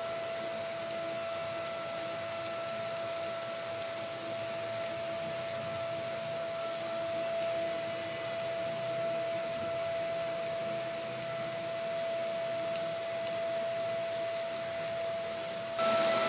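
A steady motor hum with an unchanging whine, over an even hiss.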